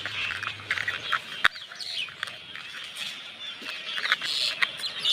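Small birds chirping in the background, with scattered clicks of plastic toy parts being handled and snapped together; the sharpest click comes about a second and a half in.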